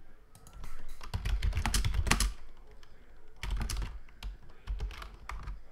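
Computer keyboard being typed on: three short bursts of quick keystrokes, a little over a second in, around the middle, and near the end, entering keyboard shortcuts.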